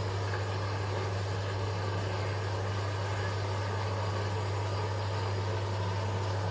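Whirlpool WWDC 7210/1 washing machine running with a steady low hum.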